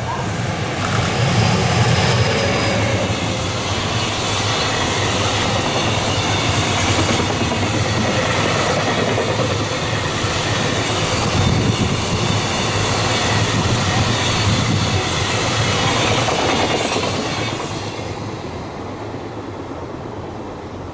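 EF210 electric freight locomotive passing close at speed, followed by a long string of container flat wagons whose wheels clatter steadily over the rails. The sound is loudest as the locomotive goes by and fades away a few seconds before the end as the last wagons pass.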